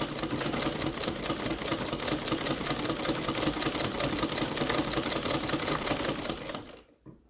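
Post-1876 Domestic treadle sewing machine running fast under the treadle, a steady rapid mechanical clatter that stops suddenly near the end.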